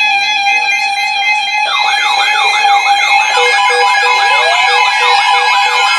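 Several weather alert radios going into alarm together about two seconds in: overlapping warbling siren sweeps repeating a few times a second, joined by a rapid beeping a little later, over steady background music. It is the radios' alert for a severe thunderstorm warning.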